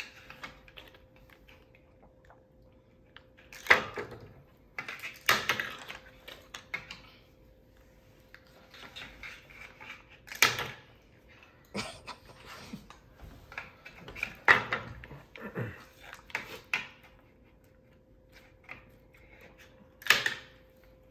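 Game discs dropped one at a time into a giant Connect Four board, each landing with a sharp clack. There are about five loud clacks spread a few seconds apart, with lighter clicks from discs being handled in between.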